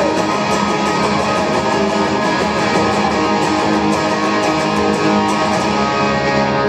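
Electric guitar played through an amplifier, loud strummed chords ringing on steadily.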